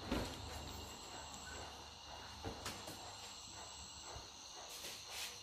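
Insects chirring in a faint, steady, high-pitched drone, with a short thump right at the start.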